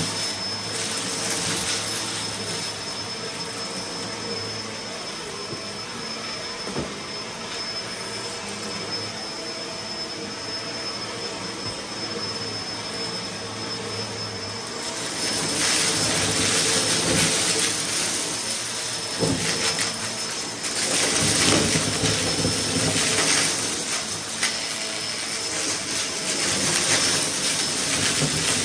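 Bagless upright vacuum cleaner running steadily with a thin high motor whine. About halfway through it is pushed into a thick pile of confetti and sequins: the sound grows louder and is joined by a dense crackling of debris being sucked up, with a brief dip a few seconds later.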